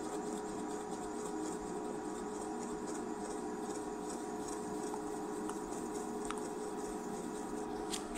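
Quiet room tone: a steady faint hum with a few soft, scattered ticks.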